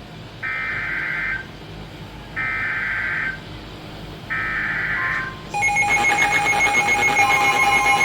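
Emergency Alert System SAME header: three buzzing data-tone bursts, each about a second long and a second apart, followed about five and a half seconds in by the steady EAS attention tone. It is a relay heard over a staticky AM radio broadcast.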